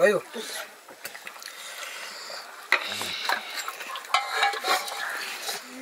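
A metal spoon stirring and scraping in a cooking pot, with a couple of sharp clinks partway through.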